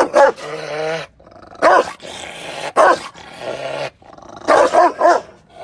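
Angry Rottweiler barking loudly, about six deep barks, with growling in the gaps between them; the last barks come quickly in a group of three near the end.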